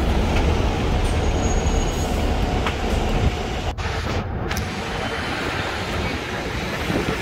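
Steady rumble of a moving double-decker tour bus and city street traffic, heard from its open top deck.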